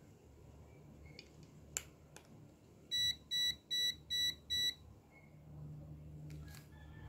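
Handheld non-contact infrared thermometer beeping five times in quick succession, short high electronic beeps, as it reads 101.6 °F, a fever. A single light click comes a second or so before the beeps.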